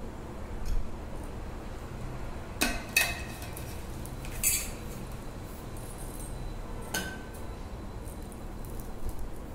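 A few light clicks and taps, scattered singly over several seconds, against a steady low background hum.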